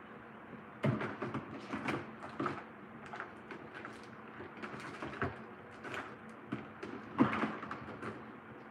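Rummaging: objects being moved about and set down, an irregular run of knocks, clicks and rattles, with the loudest knocks about a second in and about seven seconds in.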